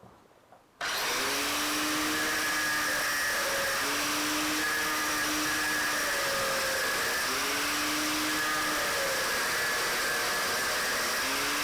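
Angle grinder cutting metal: a steady grinding noise that starts abruptly about a second in, with a low tone coming and going every few seconds.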